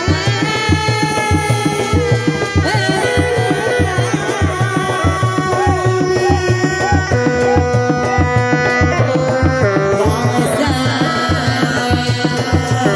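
Live Sundanese reak music: dog-dog drums beating a fast, steady rhythm, with a long held melody line that bends in pitch over the top.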